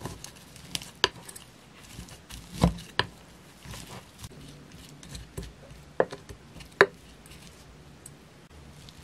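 Wooden spoon stirring rice and stir-fried anchovies in a glass bowl: soft scraping and mushing, with about six sharp clicks as the spoon knocks against the glass, two near the first second, two around the third and two around the sixth to seventh.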